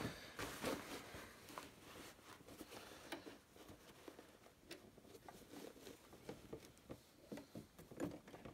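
Faint rustling of camouflage uniform fabric being shifted and lined up under a sewing machine's presser foot, with scattered soft clicks and taps; the machine is not running.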